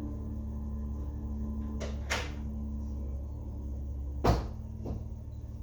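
Knocks and clunks of hard objects being handled and set down: two close together about two seconds in, a louder sharp knock a little after four seconds, then a softer one. A steady low hum runs underneath.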